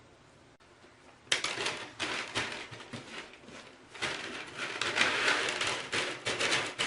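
Short lengths of insulated copper wire being handled and stripped: a dense, uneven run of crackly scraping and clicking that starts about a second in and keeps going.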